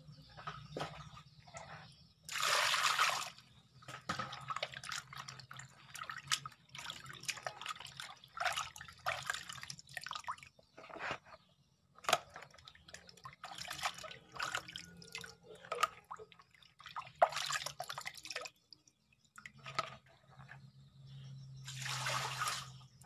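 Water sloshing, splashing and dripping as whole fish are rubbed and rinsed by hand in a plastic basin, with three longer rushes of pouring water, about two seconds in and twice near the end.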